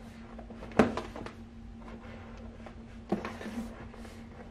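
Handling noises of a MacBook Pro's cardboard box being opened: a sharp thunk about a second in and another around three seconds in, with small taps and rustles between, over a steady low hum.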